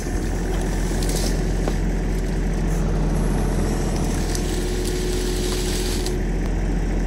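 Excavator's diesel engine running steadily while the machine scoops brush.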